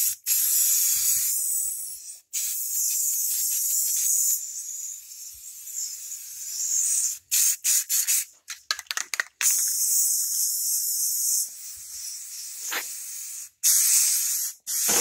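Aerosol spray-paint can hissing in several long sprays separated by brief pauses, with a run of short, quick spurts about midway.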